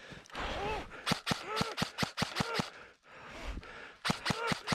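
A person breathing hard in short gasps, mixed with a quick series of sharp clicks or knocks, about four or five a second, in two runs.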